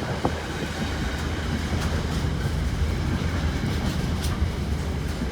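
Freight train wagons rolling through the station: a steady low rumble of wheels on the rails with a few faint clicks.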